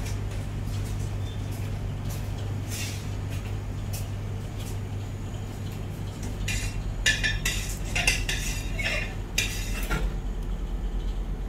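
Kitchen clatter of metal utensils, trays and dishes: a run of sharp clinks and knocks in the second half, over a steady low hum.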